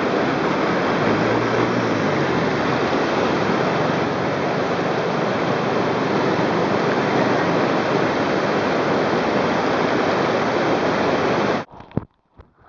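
Rushing white-water river rapids: a steady, loud rush of water that cuts off suddenly near the end.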